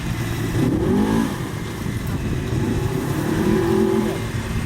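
Polaris RZR XP 1000 buggy's engine revving in two surges, the pitch rising about a second in and again around three seconds in.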